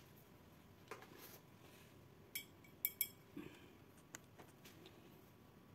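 A few light clicks and taps of small hard objects on a work surface, the loudest two in quick succession about three seconds in.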